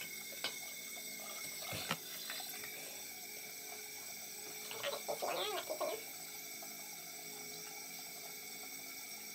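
Bathroom tap running steadily. A short knock about two seconds in, and a brief hum or vocal sound around five seconds in.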